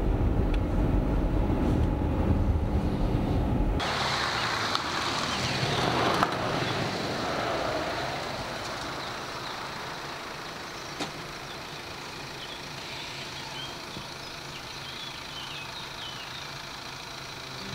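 Car road noise heard from inside the cabin while driving, a steady low rumble that cuts off about four seconds in. After it comes quieter open-air ambience with a few faint high chirps near the end.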